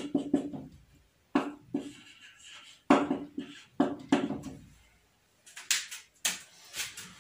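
Felt-tip marker writing on a whiteboard: a run of short squeaky strokes, then a few brief scratchy sounds near the end.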